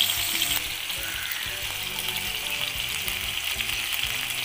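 Chicken pieces frying in hot oil in a pan, a steady sizzle.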